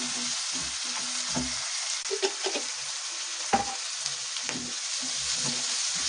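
Chopped onions and green peas sizzling in hot oil in a nonstick kadhai while a wooden spatula stirs and scrapes the pan in short irregular strokes. A sharp knock of the spatula on the pan comes about three and a half seconds in.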